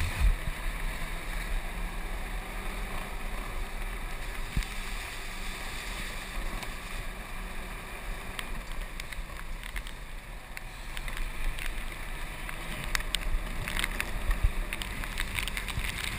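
Golf cart driving along a wet road: a steady running rumble and tyre noise, with wind buffeting the microphone.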